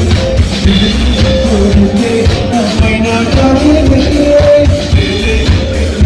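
A singer performing a song through a loudspeaker system, with musical accompaniment and heavy bass.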